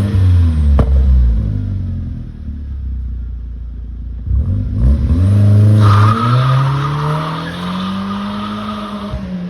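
MK4 Golf GTI 1.8T four-cylinder turbo engine through a 3-inch downpipe and catback exhaust. It starts loud and drops in pitch as the revs fall, with a sharp click about a second in, then runs quieter. After a short blip near the middle it pulls up steadily in rising pitch, with a higher whine and hiss over it from the K03 turbo and open pod-filter intake.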